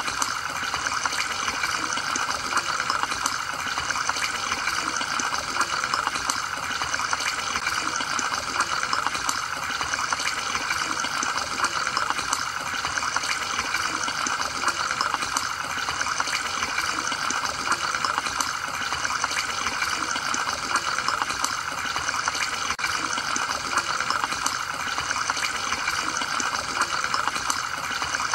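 Steady bubbling and trickling of aquarium water, stirred by the tank's sponge filter and air line.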